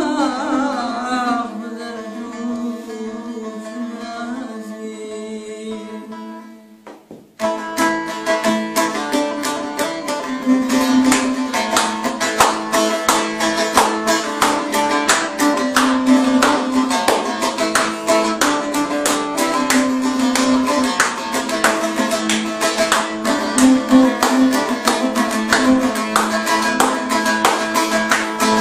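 Bağlama (long-necked saz) playing a Kurdish folk song. A sung phrase with vibrato ends about a second in over held notes, which die away. After a short break about seven seconds in, fast strummed saz playing starts up and carries on.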